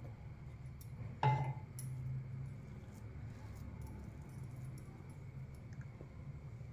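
A single sharp clink with a short ring about a second in, then a few faint ticks, over a low steady kitchen hum.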